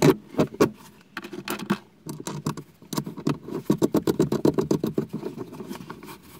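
Metal clicking and rattling as a cable ring terminal and its nut are fitted onto a battery bus bar stud. The clicks come scattered at first, then quick and dense through most of the rest, and die away near the end.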